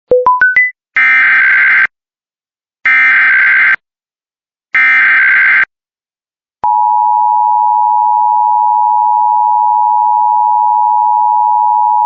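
Emergency Alert System test tones. Four quick beeps rise in pitch, then the SAME digital header sounds three times as short screechy data bursts. About six and a half seconds in, the steady two-tone EAS attention signal starts and holds.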